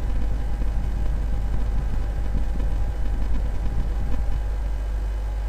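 Steady low rumble of launch-pad ambience, with a faint steady hum over it, while the Falcon 9 sits on the pad before engine ignition.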